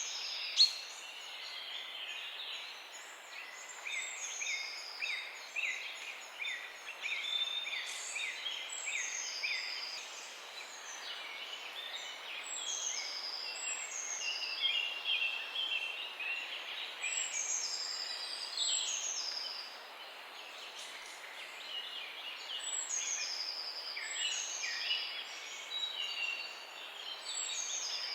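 Morning chorus of several small songbirds: many overlapping quick chirps and short falling whistles, over a faint steady hiss. There is one sharp click about half a second in.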